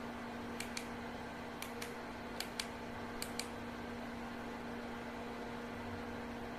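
Steady hum of a running Indosky Sky S7 projector's cooling fan, with four pairs of light, sharp clicks about a second apart in the first half.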